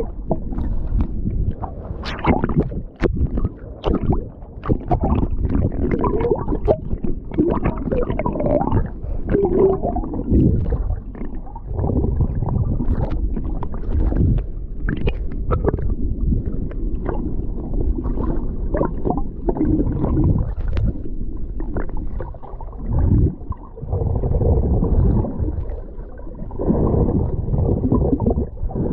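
Sea water sloshing and gurgling close to the microphone, a heavy low rumble with frequent small splashes and clicks.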